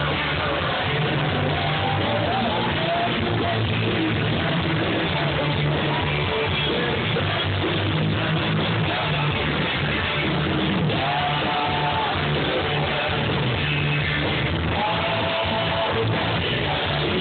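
A rock band playing live, with singing over electric bass guitar, guitar and drums.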